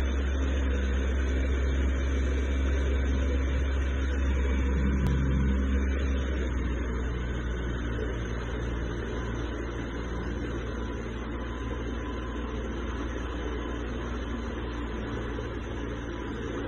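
Motorboat engine running steadily under way, a low drone mixed with the rush of water and wind. It becomes a little quieter about seven seconds in.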